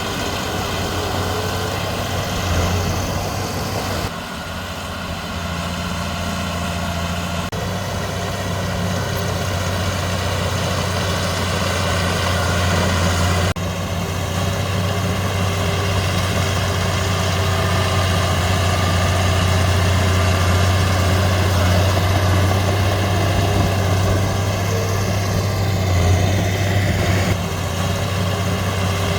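Heavy diesel engine of earthmoving machinery running steadily with a low hum. Its sound shifts abruptly a few times.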